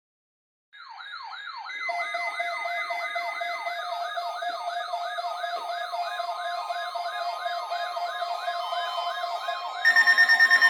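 Electronic warbling alert siren fading in, its pitch sweeping down again and again about three times a second over a steady lower tone. Near the end a louder, steady, pulsing alert tone takes over.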